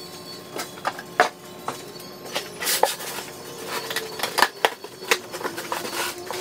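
Boxes of car parts being unpacked: irregular knocks, taps and clatter as parts and cardboard boxes are handled, with a short rustle of packaging, over a faint steady hum.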